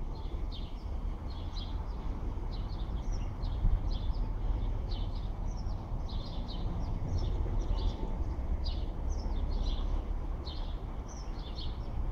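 Small birds chirping, many short high calls a few times a second, over a steady low rumble.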